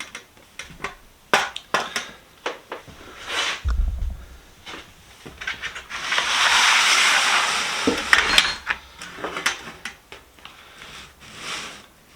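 Steel sockets and a metal socket box being handled, with scattered metal clinks and clacks, and a hiss lasting about two seconds midway.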